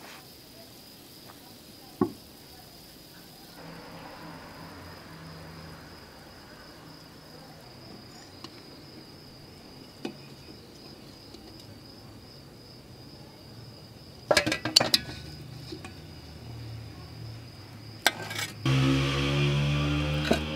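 Metal tongs clinking sharply against an aluminium steamer pot and a steel plate while steamed beef chops are lifted out, a few separate clinks with a quick cluster past the middle, over steady chirping of crickets. Near the end a louder, low droning sound comes in and falls in pitch.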